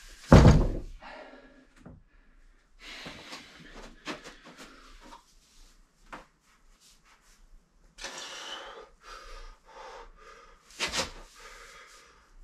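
A heavy round lifting stone thudding down onto the floor about half a second in, and again shortly before the end, in failed attempts to lift it. Between the thuds come hard, strained breaths.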